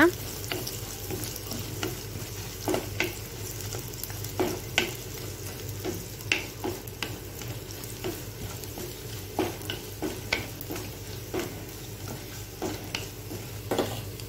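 Chopped coconut and cashews sautéing in hot oil in a pan, with a faint sizzle, while a spatula stirs them, scraping and tapping against the pan at irregular intervals.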